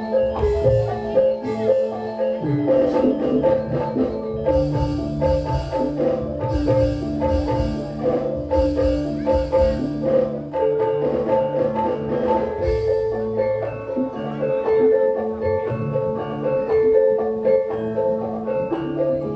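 Javanese gamelan playing: struck metallophones ringing out a steady run of notes over longer ringing tones, with drum strokes beneath.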